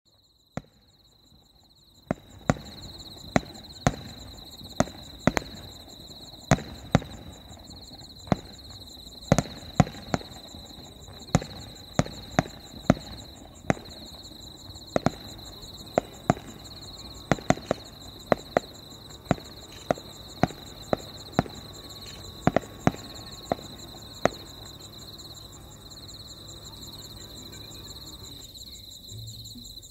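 Aerial firework shells bursting overhead in a rapid, irregular series of sharp bangs, some thirty in all, over a low rumble. The bangs stop about three-quarters of the way through.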